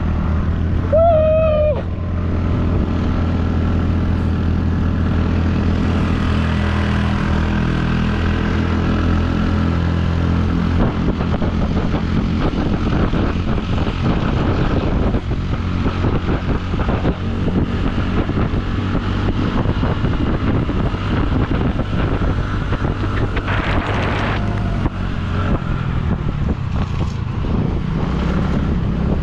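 A vehicle engine running steadily while riding, with wind rushing over the microphone. About a second in there is a short, high, wavering tone.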